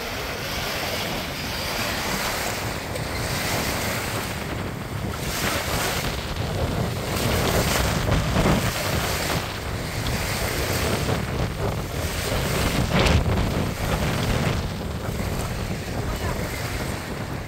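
Small wind-driven waves lapping and washing onto a lake shore, with gusty wind buffeting the microphone, the gusts strongest about eight and thirteen seconds in.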